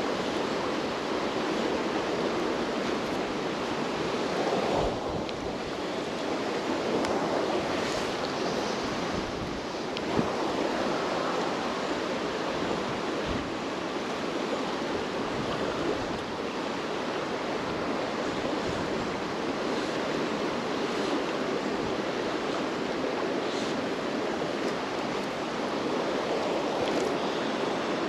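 Fast-flowing river water rushing and swirling steadily close by, with a single brief tap about ten seconds in.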